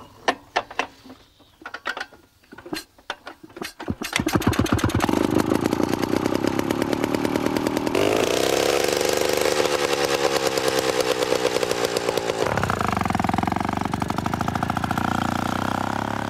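Small engine of a vintage walk-behind motor cultivator: a few sharp clanks, then it starts about four seconds in and runs with a fast, even firing beat, its note shifting around eight seconds and again near twelve.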